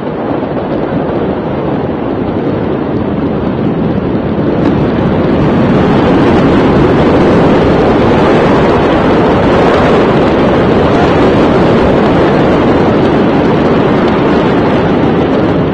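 Loud, steady rushing noise of wind buffeting a phone's microphone, growing louder about five seconds in.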